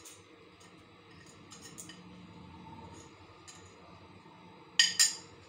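Metal fork against a bowl: a few light ticks and scrapes, then two sharp clinks close together near the end.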